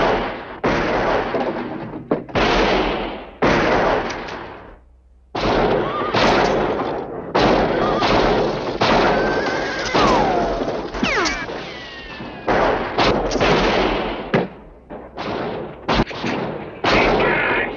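Gunfight of rifle shots, including a lever-action rifle: well over a dozen sharp cracks a second or so apart, each with a long echoing tail. A falling whine about ten seconds in.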